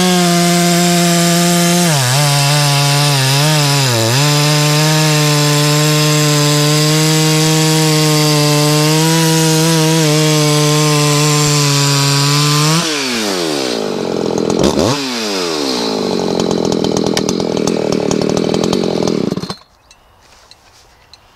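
Two-stroke chainsaw running at full throttle through a log, its engine pitch dipping briefly twice under load. About 13 seconds in the revs fall away, blip up once and settle to idle, then the engine cuts off shortly before the end.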